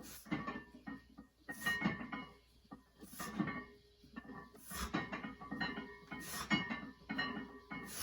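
Background music with a slow, heavy beat: a hard hit about every second and a half, with sustained pitched notes between.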